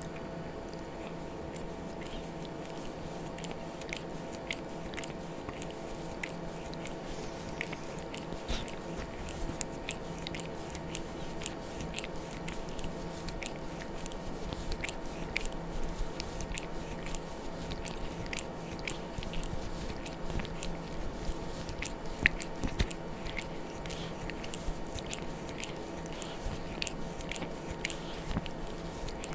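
A cat licking repeatedly: quick wet tongue clicks and smacks, irregular, a few a second, over a steady hum.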